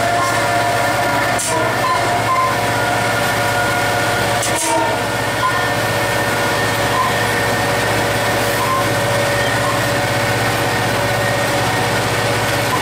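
EMD two-stroke diesel engine of a GT36HCW locomotive running steadily under load as the train accelerates, heard from inside the cab as a steady low hum with a higher whine over it. Two brief knocks come about a second and a half and nearly five seconds in.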